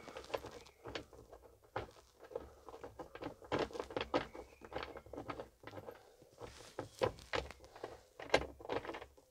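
Hands unscrewing the captive nuts on a tractor cab's roof air-filter cover: an irregular run of small clicks, taps and scrapes of metal nuts and the plastic cover.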